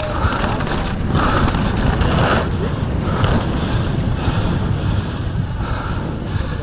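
Wind buffeting the microphone as a mountain bike descends a dirt trail at speed, with surges of tyre noise and scattered clicks and rattles from the bike.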